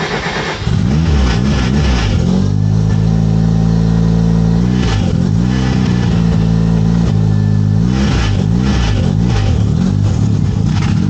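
Rebuilt two-rotor Mazda RX-7 rotary engine running just after its first start, revved up and down several times between steadier stretches. A rattle comes from a loose V-band clamp on the exhaust.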